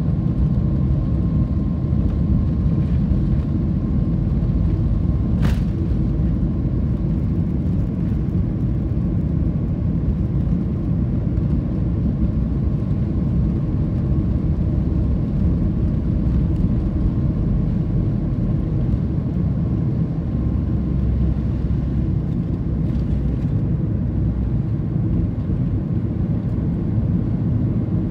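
Cabin noise inside a Boeing 737-8 MAX on its takeoff roll and climb-out: a steady low rumble from the CFM LEAP-1B engines at takeoff thrust, with a faint steady whine over it for the first few seconds. A single sharp click sounds about five seconds in.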